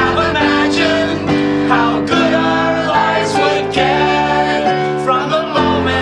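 Music: acoustic guitar strumming held chords that change about once a second.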